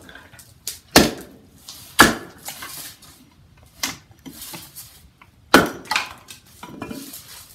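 Splitting kindling with an Estwing Sportsman Axe, the bit set in a stick of firewood and the stick and axe brought down together onto a wooden chopping block. A series of sharp wooden knocks and cracks: the loudest about a second in, two seconds in and five and a half seconds in, with smaller knocks between.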